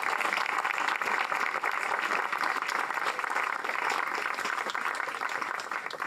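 Audience applauding: many hands clapping in a steady, dense patter.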